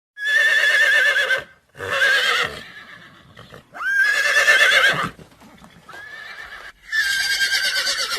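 Horse whinnying: four loud neighs with a wavering, shaking pitch, and a fainter one just before the last.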